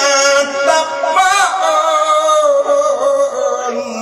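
Sung Thai verse sermon (thet klon): a voice singing long, wavering melodic lines with music.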